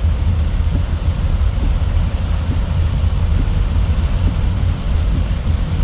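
Heavy rain falling as a steady hiss, under a continuous deep rumble.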